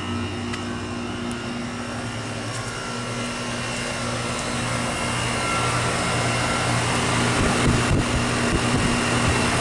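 Goodman heat pump outdoor unit just started in heating mode: compressor hum and fan running, growing steadily louder as it comes up to speed. A brief low rumble comes near the end.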